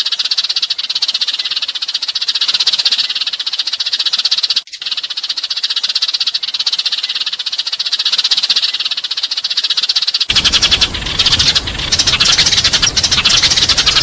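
A dense, continuous chattering chorus of many sparrows calling together: a flock-call lure recording of the kind played to draw sparrows in to traps. It breaks off for an instant about five seconds in. About ten seconds in it switches to a louder, fuller section with a low rumble underneath.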